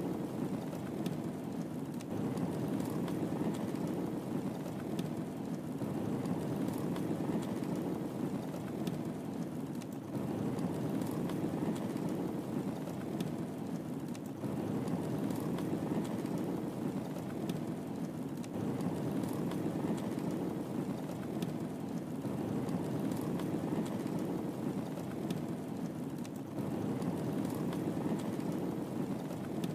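Wood fire burning in a fireplace: a steady low rush of flames with scattered small crackles and pops.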